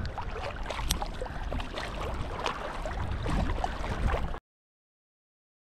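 Shallow sea water splashing and sloshing around a small hooked fish as it is reeled across the surface, with a low rumble of wind on the microphone. The sound cuts off abruptly a little over four seconds in.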